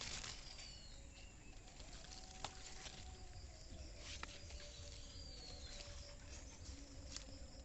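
Quiet outdoor ambience with faint bird calls and a few light clicks.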